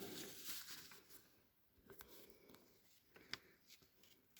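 Near silence with faint paper rustling and a few light ticks as an old paper instruction manual is opened; the sharpest tick comes about three seconds in.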